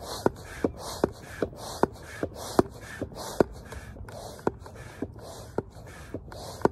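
Hand pump inflating an inflatable stand-up paddle board: quick, even strokes, each a rush of air with a sharp click, about two to three a second.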